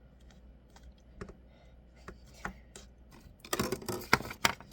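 Small plastic clicks and rattles as a toy ice-cream scooper from a slime kit is handled and worked, a few light clicks at first, then a dense burst of clicking about three and a half seconds in.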